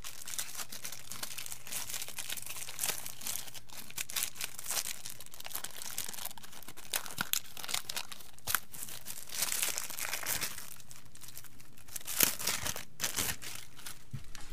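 Clear plastic wrapping film on a battery pack crinkling and tearing as it is pulled off by hand, in irregular crackles that come in denser, louder bursts toward the end.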